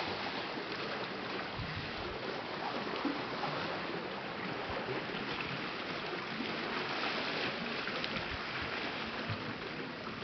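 Steady outdoor wash of noise from breeze and lagoon water around an overwater boardwalk, with no single event standing out.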